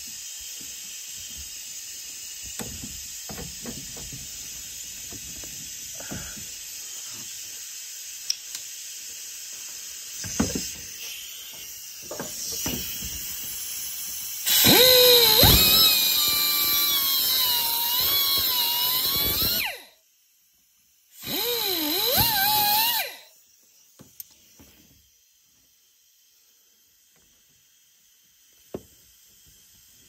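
Small high-speed cutoff tool grinding through the metal crimp ferrule on a transmission cooler hose, its whine wavering in pitch as the wheel bites. It runs in two bursts past the middle, about five seconds and then about two, after a stretch of faint clicks and scraping.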